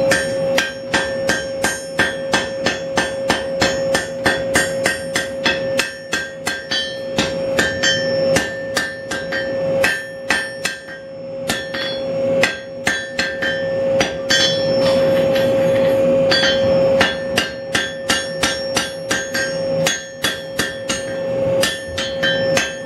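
Hand hammer striking white-hot steel on an anvil to set a forge weld: a steady run of blows, about three a second, with the anvil ringing on between strikes. The hammering pauses briefly about halfway through.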